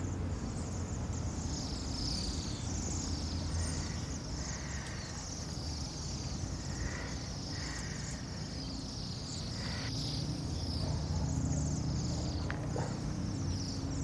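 A large flock of Bohemian waxwings calling continuously: many overlapping high, thin trills, over a low steady rumble.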